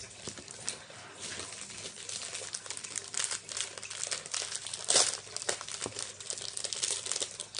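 Packaging crinkling and rustling as it is handled and opened, in irregular crackles, with a louder crackle about five seconds in.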